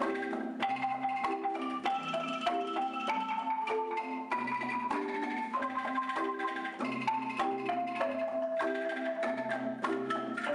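Background music: an upbeat tune with marimba-like mallet percussion over a repeating bass line and a steady beat.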